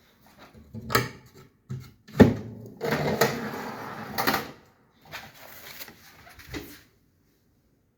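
Built-in joinery drawers and cabinet doors being opened and closed: several knocks with stretches of sliding or scraping between them.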